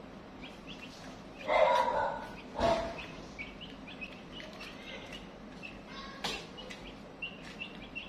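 Chicks peeping over and over in short high chirps, with one louder, lower call about a second and a half in and a couple of sharp knocks.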